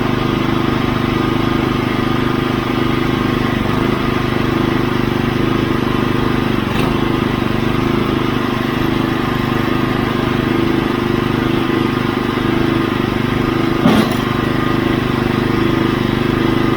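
Portable sawmill's engine running steadily under a constant load. There is one sharp knock about fourteen seconds in.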